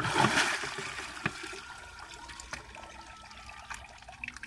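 Shallow muddy water splashing loudly for about the first second as a fish is pulled out by hand, then dripping and trickling, with a few small knocks.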